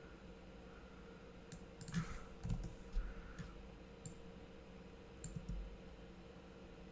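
Scattered computer mouse and keyboard clicks, a cluster of them about two seconds in and a few more after five seconds, over a faint steady electrical hum.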